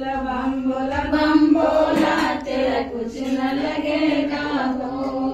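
Women's voices chanting a Hindu devotional chant to Shiva, with long held notes.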